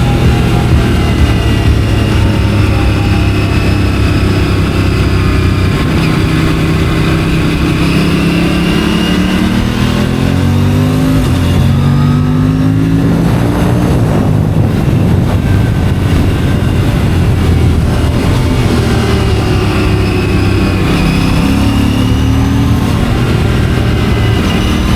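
Aprilia RS 457's stock parallel-twin engine under way, its pitch rising and falling with the throttle.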